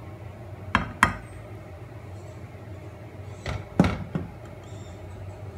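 Sharp knocks of a bowl against hard kitchenware: two close together about a second in, then three more between about three and a half and four seconds in, as the emptied pouring bowl is tapped on the glass baking dish and set down. A steady low hum runs underneath.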